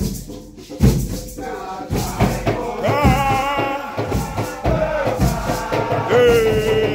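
Nyahbinghi drumming with rattles, a steady beat of low drum strokes, and a group of voices chanting a song that comes in about three seconds in and starts a new line about six seconds in.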